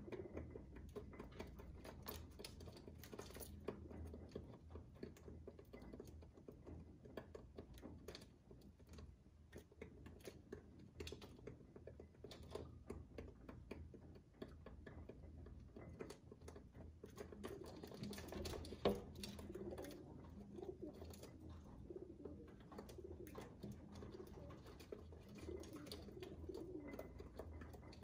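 Feral pigeons pecking seed off a window ledge, heard through the window glass: many quick beak taps, with low cooing that grows in the second half. One louder knock about two-thirds of the way in.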